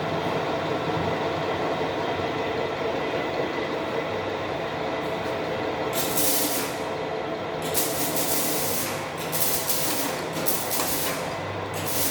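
Metal lathe running with a steady hum and whine. From about halfway, several bursts of hissing noise come and go, each lasting a second or so.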